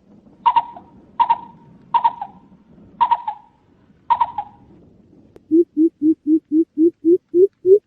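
Coucal calls on a bird-survey lure recording: five sharp, short calls about a second apart, then from about five and a half seconds a run of deep 'boop' notes, about four a second, climbing a little in pitch and loudness.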